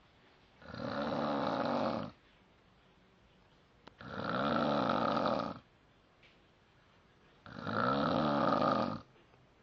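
Snoring: three long snores, each about a second and a half, coming every three and a half seconds or so, with quiet between them.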